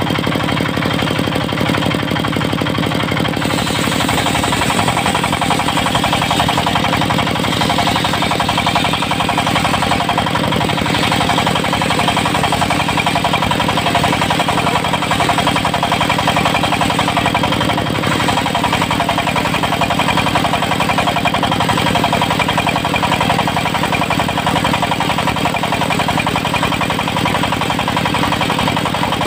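Portable circular sawmill driven by a diesel engine, running steadily while its blade rips teak. A higher-pitched saw sound comes in about three and a half seconds in and carries on over the engine.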